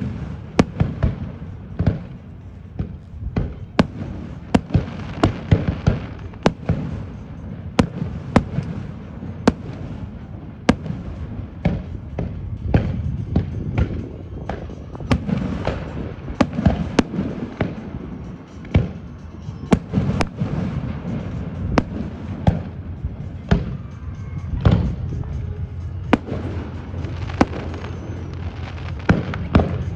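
Aerial fireworks going off in quick succession: many sharp bangs and crackles, often several a second, over a continuous low rumble.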